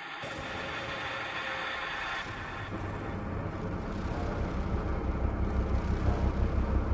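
Opening of an electronic body music (EBM) track: a dense, noisy synthesizer drone fades in, and a deep bass rumble enters about two seconds in and grows louder.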